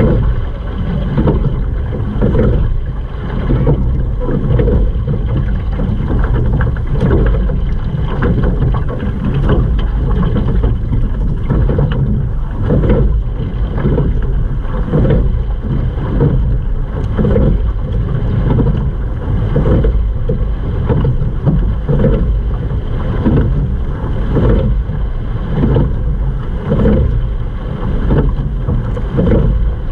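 Sculling boat under way: water rushing along the hull and the oars working in the water with each stroke, in a steady rhythm, over wind rumble on the microphone.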